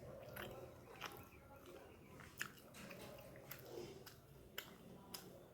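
A person chewing food with the mouth close to the microphone: faint, with scattered short clicks and smacks, the sharpest about two and a half seconds in.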